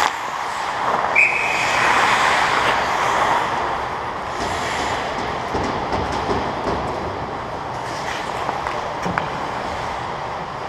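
Ice hockey skates scraping and carving on the ice around the goal, a steady hiss. A short high whistle blast sounds about a second in, and a few sharp stick clicks come later.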